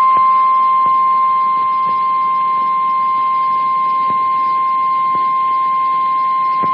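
NOAA Weather Radio warning alarm tone, the 1050 Hz alert signal that announces a severe thunderstorm warning: one unbroken, steady tone over radio hiss with a few faint clicks.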